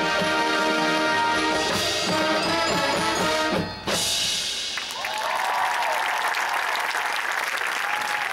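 Marching band of brass and drums playing a held chord, then a busier final passage that ends with a sharp cut-off about four seconds in, the end of the show. Crowd applause follows.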